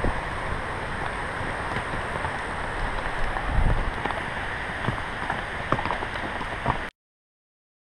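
Steady rushing wind and movement noise on a horse-mounted rider's action camera microphone, with scattered faint knocks. It cuts off suddenly about seven seconds in.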